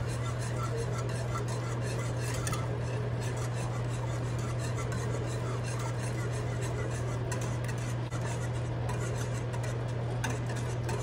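A wire whisk stirring without pause in a pot of hot milk as the maseca mixture is poured in, a steady run of quick scrapes and clinks against the pot, kept up so the masa does not form lumps. A steady low hum runs underneath.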